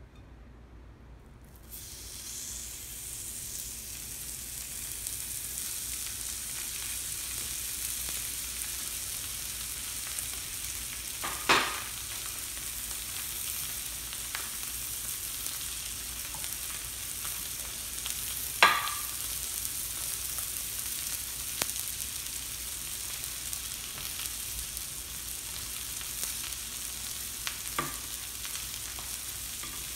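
Skirt steak sizzling on a hot stainless-steel Cook-N-Dine teppanyaki griddle: the sizzle starts about two seconds in as the meat goes down, then holds steady. Two sharp knocks stand out near the middle, about seven seconds apart.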